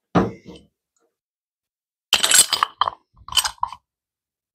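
Metal-on-metal clanks and clinks as a Briggs & Stratton overhead-valve cylinder head is worked against a socket on a steel-topped workbench: one knock at the start, then a quick cluster of sharp clinks with brief ringing about two seconds in, and a few more a second later.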